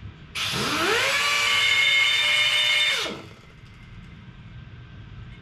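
Handheld pneumatic die grinder on an air hose spinning up with a quickly rising whine, running at a steady high pitch with loud air hiss for about two and a half seconds, then winding down and stopping.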